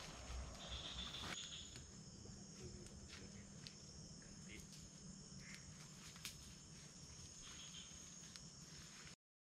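Night insects, crickets among them, calling steadily in tropical rainforest, with scattered faint clicks and snaps. The sound cuts off abruptly near the end.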